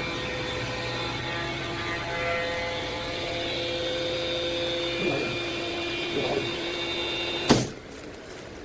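Chamber vacuum packing machine's vacuum pump running steadily with a hum of several steady tones while it evacuates the chamber. About seven and a half seconds in, a short sharp burst of noise ends it, and the sound drops to a much quieter level.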